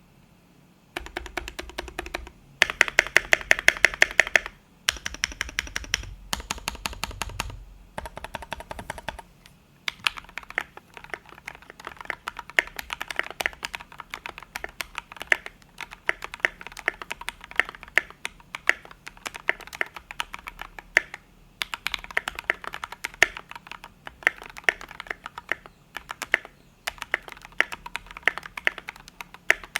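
Maxfit61 mechanical keyboard in an aluminium case, with lubed Gateron Black linear switches on 72 g progressive springs and MT3 keycaps, being typed on. A few short runs of rapid keystrokes, some louder than others, come in the first nine seconds, followed by steady typing.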